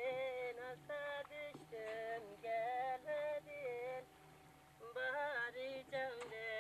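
A woman singing a melody in long, wavering held notes, with a short pause about four seconds in.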